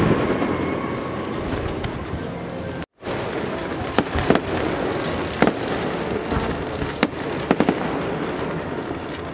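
Fireworks display: a dense, continuous wash of shell bursts and crackle, with separate sharp bangs standing out, mostly in the second half. The sound cuts out for an instant about three seconds in.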